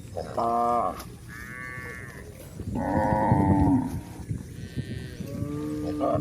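Cows mooing: four calls one after another, the loudest and longest lasting over a second about three seconds in.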